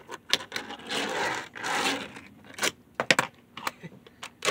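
Tech Deck fingerboard being flicked and landed on a table top and the boxes on it: sharp clacks of the small board and its wheels, with about a second of scraping as the board slides or grinds across the top.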